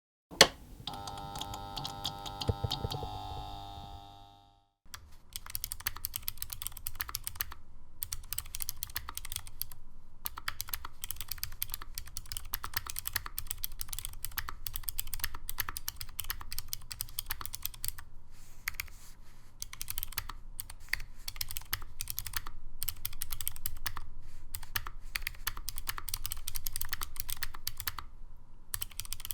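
A short musical chime of several held tones fades out over the first few seconds. Then steady, fast typing on a Polaris custom keyboard with ProWorld Cherry MX clone switches and dye-sublimated keycaps: dense key clacks with brief pauses now and then.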